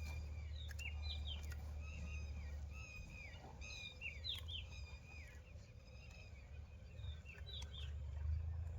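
Several birds chirping and calling in short, repeated notes, over a steady low rumble.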